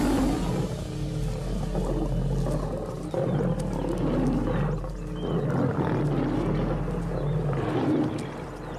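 Several lions snarling and growling over and over as they fight over a kill.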